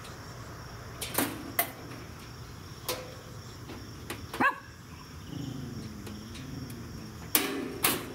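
Stainless steel side burner being fitted onto the side of a gas grill: a series of sharp sheet-metal knocks and clanks as the housing is seated against the frame, loudest about a second in, halfway through and near the end, with a short metal squeak halfway through.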